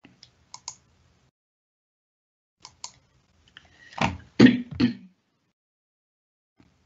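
Computer mouse clicking as a presentation slide is stepped back: two quick pairs of clicks, about two seconds apart. About four seconds in comes a brief, untranscribed sound from the presenter's voice, the loudest thing in the stretch.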